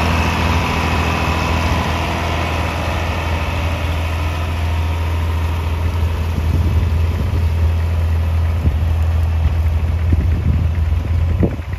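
1967 John Deere 4020 tractor's six-cylinder engine running steadily under load while pulling a plow through the soil.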